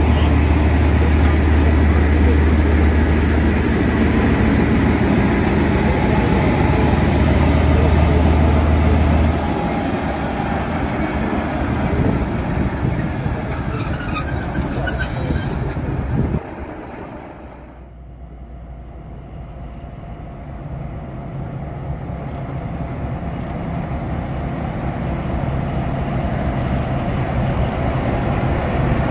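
Vintage diesel locomotives running close by with a heavy low drone, with a brief high squeal around the middle. After a sudden cut, a Nohab diesel locomotive's engine rumble builds steadily as it approaches.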